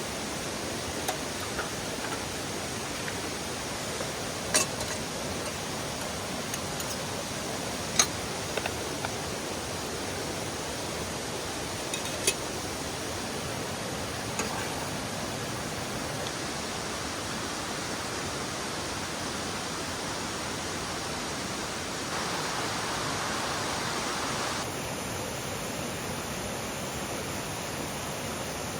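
Mountain valley stream rushing steadily over rocks, with a few sharp clicks in the first half.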